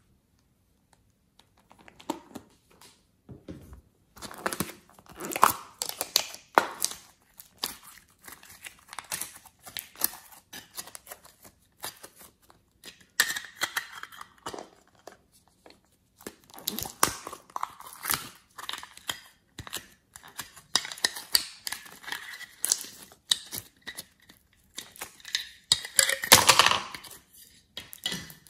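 Hands squishing, stretching and pressing soft clay and slime, with crackling, crinkling and clicking from clear plastic piping-bag containers being handled. The sounds come in short, irregular bursts starting a couple of seconds in, and the loudest squishing comes near the end.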